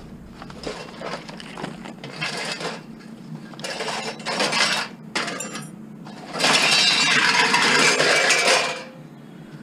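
Scrap metal clinking and rattling as pieces are handled, with a louder stretch of continuous metallic clatter lasting a couple of seconds in the second half.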